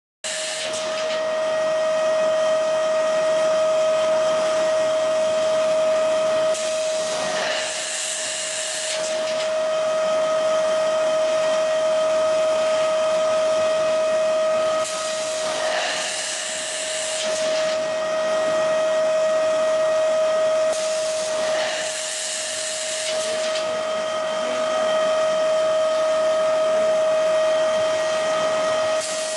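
Automatic ice lolly making machine running: a steady, high motor whine with several overtones, broken three times by a hiss lasting a couple of seconds, several seconds apart.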